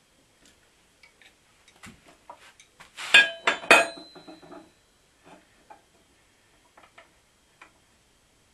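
Steel clanking and clinking as a length of steel box section is handled and clamped into a power hacksaw's vise, the saw not yet running. Two loud metallic clanks about three seconds in, the second ringing briefly, among lighter knocks and clicks.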